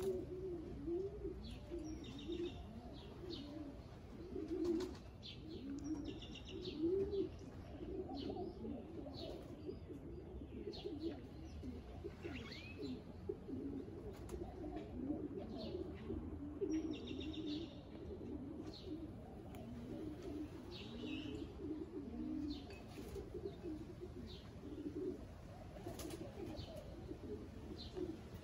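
Many domestic pigeons cooing together in a loft, a continuous overlapping chorus of low wavering coos, with scattered short high chirps.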